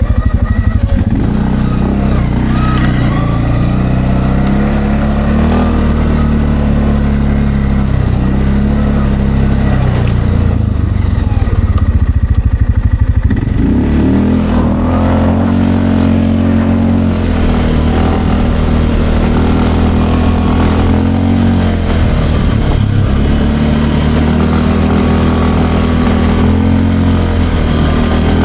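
Linhai Landforce 550L ATV engine running while being ridden, its note rising and falling with the throttle and climbing sharply about halfway through.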